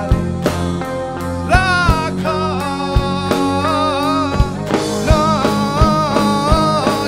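Live rock band playing: a sung melody over strummed acoustic guitar and a drum kit, with a regular beat of drum hits.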